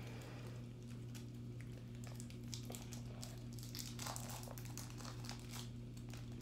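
Plastic wrapper of a Fifth Avenue candy bar being torn open and crinkled, in a run of short, irregular crackles that grow busier after the first couple of seconds, over a steady low hum.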